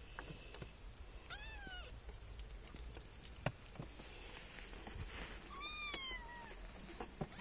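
A 25-day-old kitten meowing twice: a short high-pitched call that rises and falls about a second and a half in, and a second one near six seconds. A single sharp tap falls between them and is the loudest sound.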